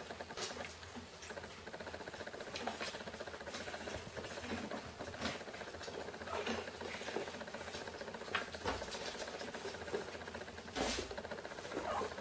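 Steady whirring buzz of a camera lens's vibration-reduction (image stabiliser) mechanism, picked up by the camera's own microphone. Over it come scattered light taps and scrabbles of kittens' paws as they play, with a louder knock about eleven seconds in.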